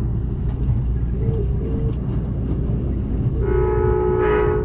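Train horn sounding for a grade crossing, heard from aboard the train over the steady low rumble of the cars running on the rails: one blast ends just as the sound begins, and another blast of about a second comes in near the end.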